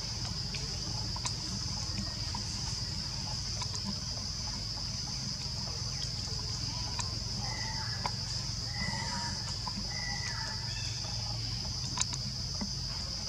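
Forest ambience dominated by a steady, high-pitched insect drone, with scattered soft ticks and a few short chirping calls in the second half.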